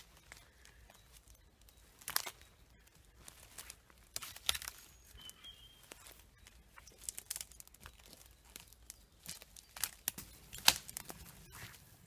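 Dry twigs and branches crackling and snapping underfoot on a pine-needle forest floor, in irregular bursts with a few sharper snaps.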